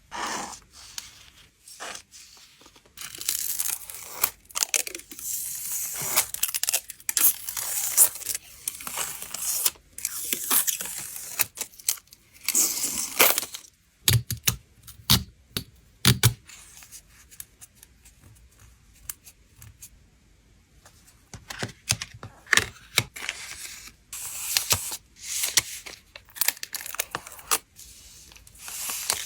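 Hand packing of photocards: packing materials being torn and crinkled in irregular rustling bursts, with a few dull knocks about halfway through.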